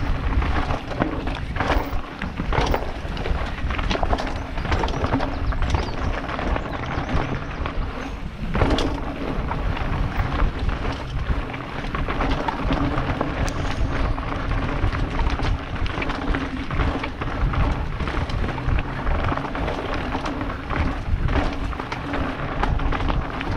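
Mountain bike clattering down a rocky trail: tyres crunching over loose stones and the bike knocking and rattling on every hit, many times a second. Steady wind rush over a helmet-mounted camera's microphone runs underneath.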